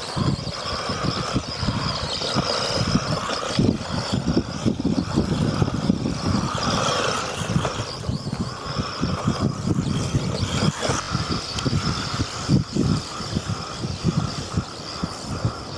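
1:18 brushless 4WD RC stadium truck driving on dirt, its electric motor whining as it speeds about, under a heavy, gusty wind rumble on the microphone.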